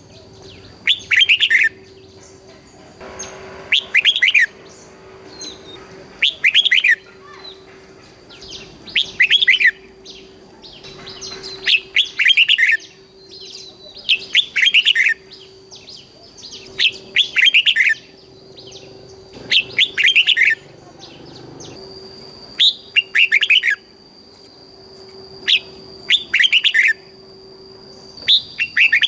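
Red-whiskered bulbul singing, loud short warbled phrases repeated about every two and a half seconds, in the 'double' (เบิ้ล) song style used to rouse and train caged bulbuls.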